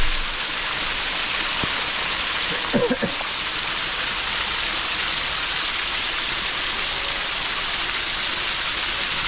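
Rain-fed waterfall rushing: a steady, loud hiss of falling water, with a brief voice about three seconds in.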